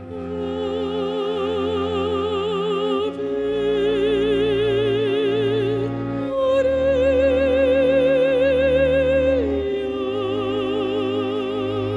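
Mezzo-soprano singing an operatic line in long held notes with wide vibrato, about four notes, the third the highest, over a low sustained accompaniment.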